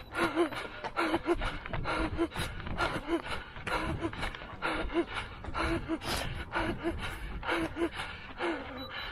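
A runner's hard, gasping breaths while sprinting, in a steady rhythm of about two a second, with low thuds underneath.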